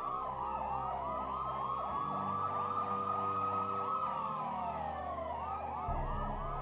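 Emergency-vehicle sirens as a sound effect: one slow wail sliding down and climbing back up, overlapped by a faster yelping warble at about four to five cycles a second. A low steady music drone sits underneath.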